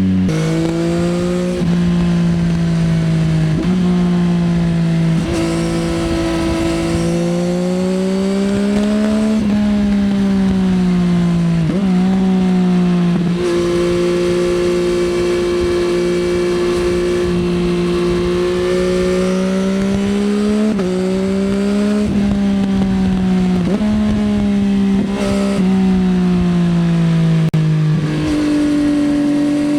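Yamaha XSR900's inline three-cylinder engine through an Akrapovič Racing Line exhaust, pulling through the gears: the pitch climbs and falls back at each shift again and again, with a long steady cruise at constant revs midway.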